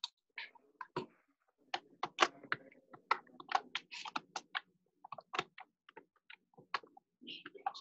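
Typing on a computer keyboard: a run of irregular key clicks, several a second, heard through a video-call microphone.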